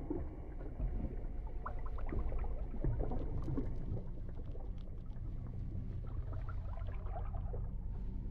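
Underwater bubbling and gurgling over a low, steady drone.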